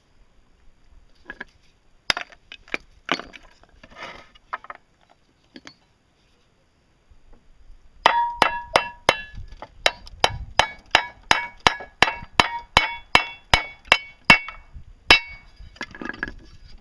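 Hammer driving a wooden peg through a hole in a steel dowel plate. After a few light knocks and clatter, about halfway in, it starts a fast run of about three blows a second, the steel plate ringing with each blow, and ends with one last blow after a short pause.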